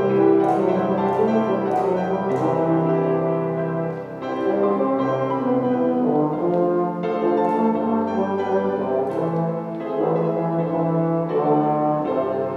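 Instrumental music played as slow, held chords, each lasting a second or two, with no singing.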